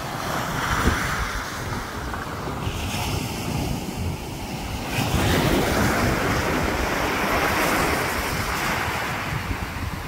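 Sea surf breaking and washing up a sandy beach, a steady hiss that swells louder about halfway through as a wave runs in. Wind buffets the microphone with a low rumble.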